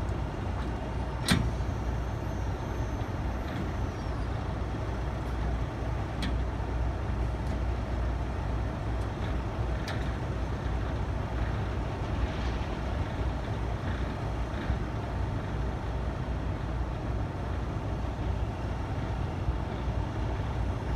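Heavy truck's diesel engine idling steadily. A sharp metallic clank comes about a second in, and a few lighter clicks follow later.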